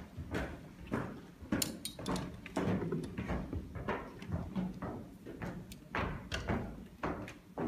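Footsteps and knocks on a hard hall floor, irregular thuds about one or two a second.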